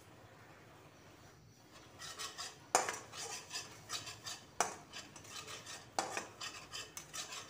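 Flat steel spatula scraping and stirring ginger-garlic-cashew paste around a steel kadai as it fries, with sharp clanks of metal on metal. It starts about two seconds in as a run of scraping strokes, three of them ending in louder knocks against the pan.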